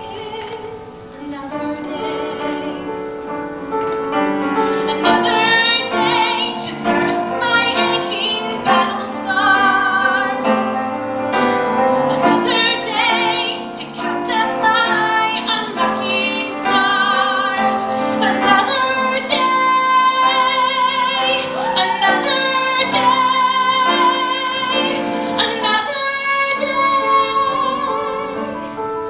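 A woman singing a musical-theatre ballad live over instrumental accompaniment, holding long notes with vibrato; the singing grows louder about four seconds in.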